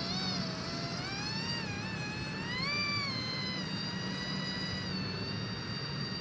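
Motor of a small radio-controlled boat whining as it drives off across the water. Its pitch rises and falls with the throttle for the first few seconds, then holds steady at full speed.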